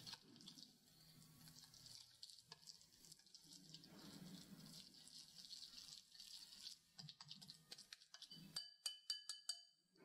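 Wire balloon whisk stirring thick cake batter in a glass bowl: faint, irregular scraping and stirring. Near the end come several quick sharp taps that ring briefly, the whisk knocking against the glass bowl.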